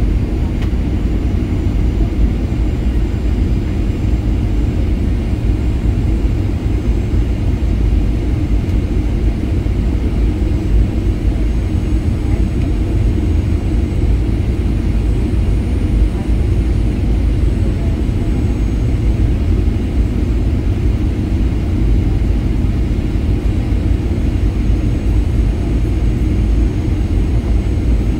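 Steady low roar of engines and airflow inside the cabin of a Boeing 737-800 in flight, even and unchanging throughout.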